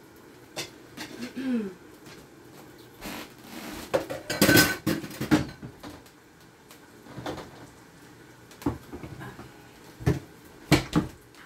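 Dishes, pans and cutlery clattering as kitchenware is handled: scattered knocks, with the loudest clatter about four to five seconds in carrying a brief metallic ring, then a few more knocks near the end.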